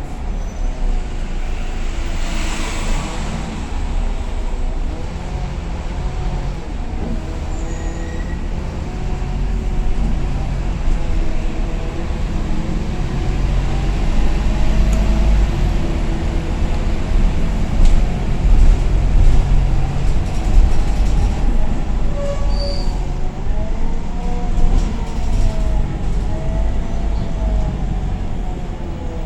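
Scania diesel city bus running: a low engine rumble with a drivetrain whine that rises and falls as it speeds up and slows, and a brief hiss about two to three seconds in.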